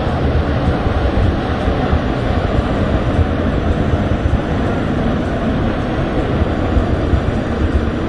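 Waterfall rushing steadily: a loud, even noise of falling water, heaviest in the low end.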